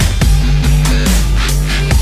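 Loud electronic dance music in a dubstep style: a heavy, sustained bass with sliding synth tones over a steady drum beat, no vocals.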